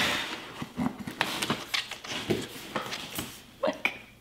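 Packing tape being picked at and torn off a cardboard shipping box: a string of short rips, rustles and scrapes, with a few brief grunts of effort.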